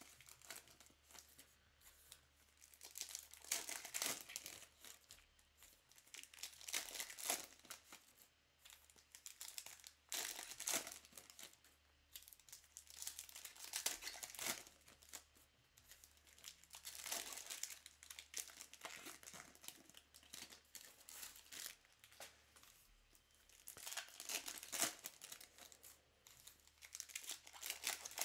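Trading card pack wrappers being torn open and crinkled, in repeated short bursts every few seconds.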